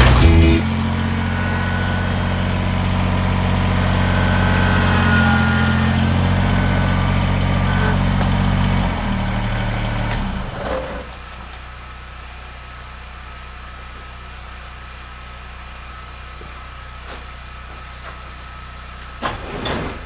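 Kubota BX compact tractor's three-cylinder diesel engine running steadily, its speed lifting a little partway through, then dropping away about eleven seconds in and leaving a quieter steady hum. A couple of knocks near the end.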